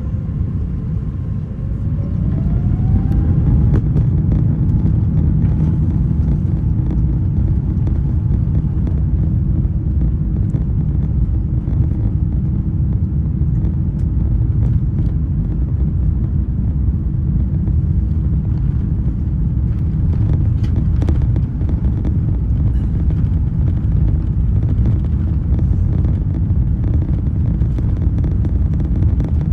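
Airbus A350-900's Rolls-Royce Trent XWB engines heard from inside the cabin, spooling up with a rising whine about two seconds in, then a loud, steady rumble as they hold high thrust for takeoff.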